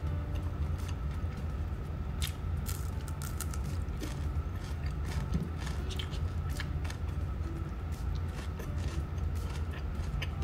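Close-miked chewing: irregular mouth clicks and smacks of someone eating, over a steady low hum.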